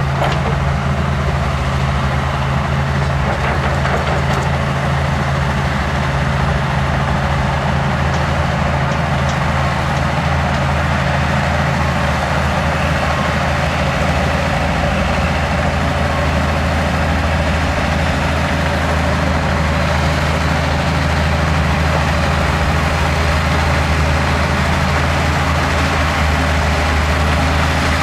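Heavy diesel engine of earthmoving machinery (bulldozer or excavator) running steadily with a low, even drone.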